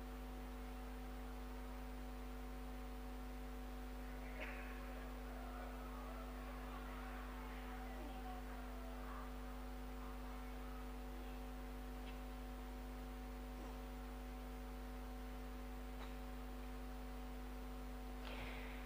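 Steady electrical mains hum from the microphone and sound system, with faint voices murmuring in the room and a brief soft noise near the end.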